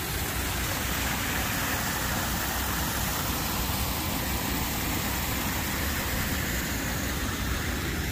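Steady rushing of water pouring over and through a low river dam, an even unbroken noise.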